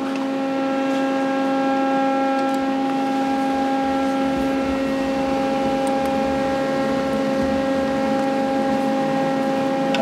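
Steady mechanical hum: a constant pitched drone with several overtones, unchanging in pitch or level, with a few faint clicks of tool work.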